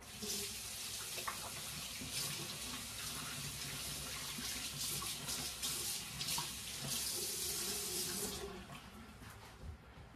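A bathroom sink tap running, water splashing into the basin, then shut off near the end.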